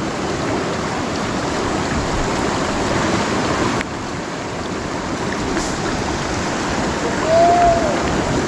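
Shallow river water rushing steadily over rocks. A single short whistle-like note rises and falls about seven and a half seconds in.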